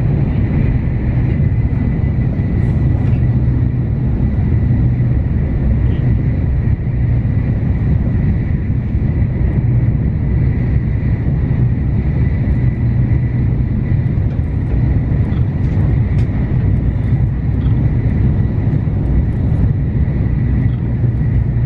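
Shinkansen carriage running at speed, heard from inside the cabin: a steady low rumble of wheels on rail and air rushing past, with a faint steady high whine above it.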